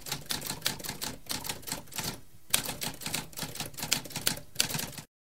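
Typewriter typing: a rapid run of key strikes for about five seconds, with a brief pause a little after two seconds, then stopping abruptly.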